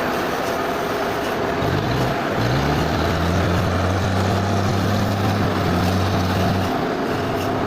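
Steady machinery noise, with a low motor hum that starts about two seconds in, rises in pitch briefly, holds steady, and cuts off about a second before the end.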